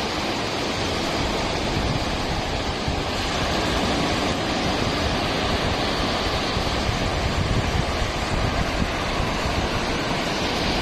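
Waves breaking on a sandy beach, a steady wash of surf, with wind rumbling on the phone's microphone.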